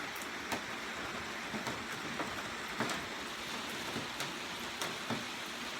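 Heavy typhoon rain falling steadily, an even hiss with the sharp ticks of individual drops hitting a nearby surface every half second or so.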